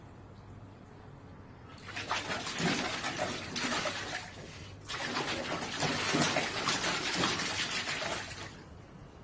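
Water splashing as a puppy paddles and stamps in a shallow plastic paddling pool. It comes in two bouts of a few seconds each, the first starting about two seconds in and the second about five seconds in, then dies down near the end.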